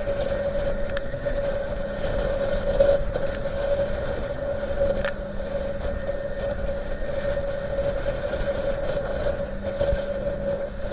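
Motorboat engine running at a steady pitch with a continuous rush of water and wind.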